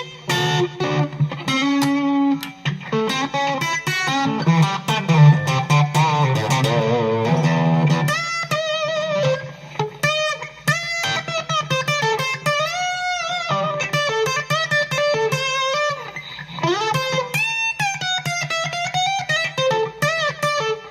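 Custom Les Paul electric guitar played lead: fast runs of picked notes for the first eight seconds or so, then slower phrases full of string bends and vibrato, over a steady low tone.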